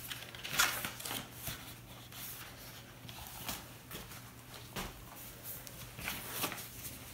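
A paperback book being handled, its cover flaps and pages turned: short paper rustles every second or so.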